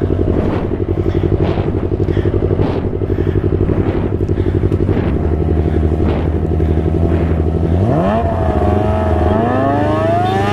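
Motorcycle engines idling side by side, a Yamaha MT25 parallel twin and a Kawasaki ZX-25R inline four, with an even pulsing beat. About eight seconds in, an engine revs up in a sharply rising whine, holds, dips briefly, then climbs again.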